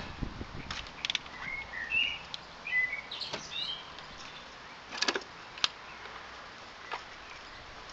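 A few sharp clicks and knocks from hands working the plastic fittings on a diesel fuel filter housing lid. Birds chirp in the background for a couple of seconds, starting about a second and a half in.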